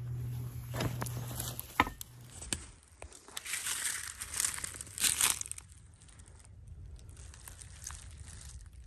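Gear being handled, with a sharp click about two seconds in, then footsteps crunching through dry fallen leaves. The footsteps are loudest around four to five seconds in and softer after that.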